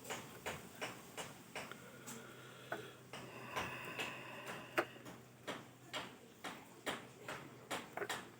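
Light ticking clicks, about two a second, over a faint steady hum.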